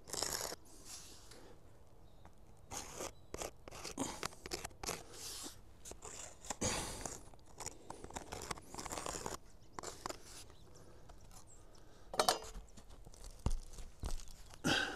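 Irregular scraping and crunching on an asphalt-shingle roof: a utility knife cutting a cardboard template, then soapstone scraping over the gritty shingles as the template's outline is traced.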